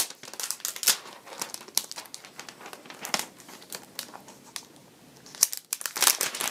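Clear plastic protective film being peeled off a tablet and handled: irregular crinkling and crackling, with a sharp snap right at the start and the busiest stretch near the end.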